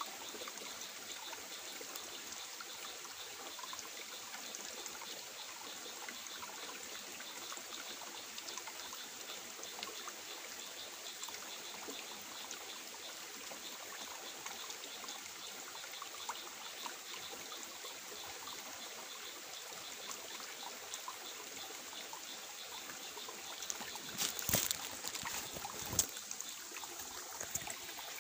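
Shallow stream water trickling steadily over rocks, with a couple of brief knocks near the end.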